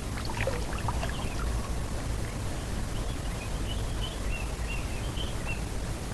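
Outdoor water-side ambience: steady wind and water noise with a low rumble, a few faint clicks early in the first second, and a run of faint bird chirps in the second half.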